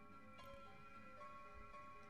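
Faint background music: a few soft, sustained notes entering one after another.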